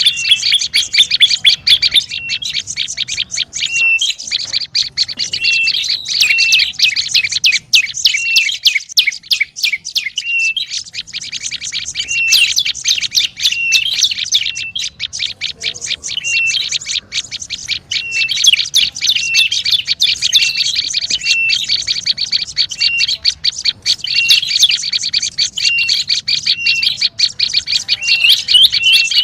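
Prenjak lumut calling agitatedly: a dense, rapid run of high chirps with a short hooked note repeated about once a second, thinning briefly about a third of the way in. This is the 'ribut' call played as a lure for the species.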